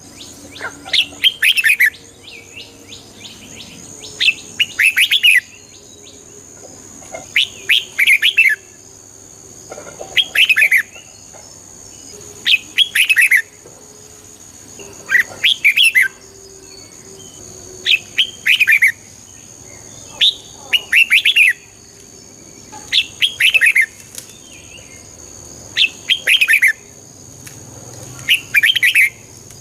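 Red-whiskered bulbul singing: short, bright phrases of a few quick notes, repeated every two to three seconds.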